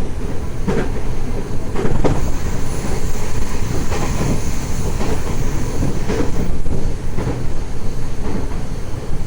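Tokyo Metro 03 series train running, heard inside the car: a steady low rumble from the wheels, with clicks over the rail joints roughly once a second.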